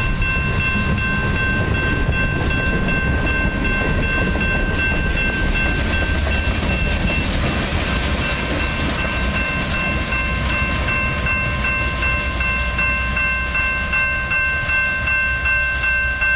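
Freight cars of a CSX local train, tank cars and covered hoppers, rolling past over a grade crossing with a steady rumble and clatter of wheels on rail. A grade-crossing warning bell rings steadily over it, its strokes standing out more clearly in the second half as the end of the train passes.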